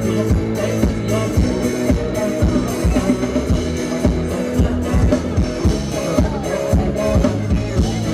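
Amplified ramwong dance music from a live band, with a steady drum beat under sustained pitched notes.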